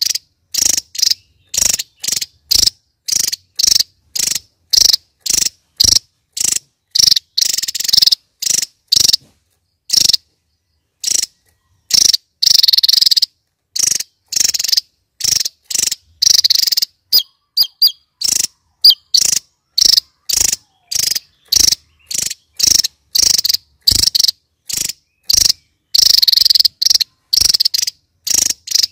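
Javan tesia singing in rapid high-pitched bursts, about two a second, with a few longer trills lasting about a second.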